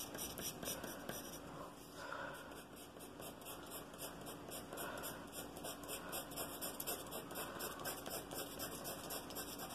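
Pencil scratching on paper in quick, even hatching strokes, several a second, laying down lines to blend a shaded area.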